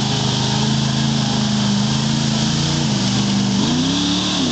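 Lifted pickup truck's engine running hard as the truck drives through deep mud and water; the revs sag about three seconds in, then climb again near the end.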